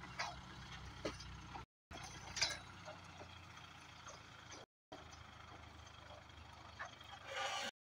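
An engine's low, steady hum with a few short knocks and clicks; the hum fades about three seconds in, the sound cuts out briefly twice, and a short burst of noise comes near the end.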